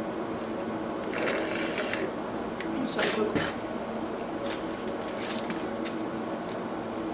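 Sipping a drink through a straw, then chewing with short wet mouth clicks and smacks, the loudest about 3 seconds in. A steady air-conditioner hum runs underneath.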